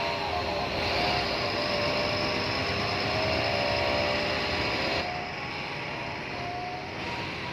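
Bus engine and road noise inside a moving bus, a steady rumble with a wavering whine. It gets a little quieter about five seconds in.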